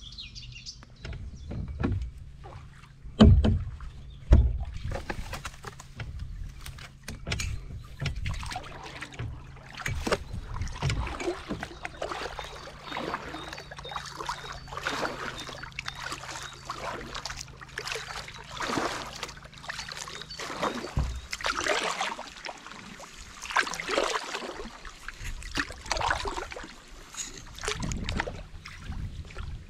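Canoe paddle strokes in the water, a regular swish and splash about every second or so, with two loud thumps a few seconds in.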